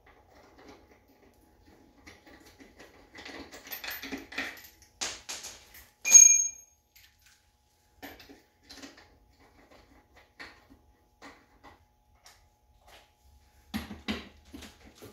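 Lug nuts and wheel hardware handled by hand at an ATV wheel hub: scattered small metallic clicks and rattles, with one sharp ringing metal clink about six seconds in. Near the end a cordless impact driver starts in short bursts, running a lug nut down.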